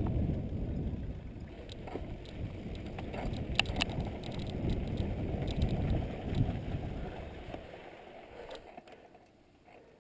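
Riding a mountain bike down a dirt singletrack, heard from a helmet camera: a low rumble of wind on the microphone and tyres on the dirt, with scattered sharp clicks and rattles from the bike. It fades away over the last few seconds.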